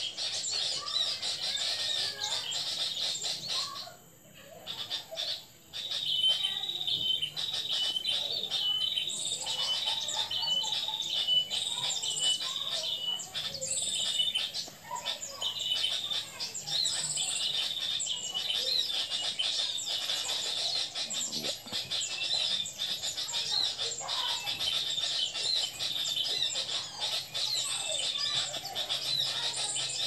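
Small birds chirping and twittering without a break, high and busy, with a quick run of evenly repeated short chirps about a third of the way in. The sound drops out briefly twice around four to six seconds in.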